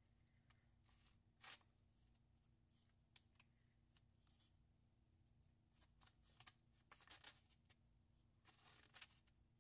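Faint scrapes of a plastic spoon and fork against rice in a styrofoam food container, in short strokes a second or two apart, coming more often near the end.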